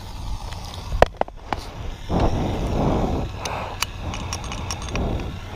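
Wind buffeting the microphone in uneven rumbling gusts, with a few sharp clicks about a second in and scattered clicks near the middle.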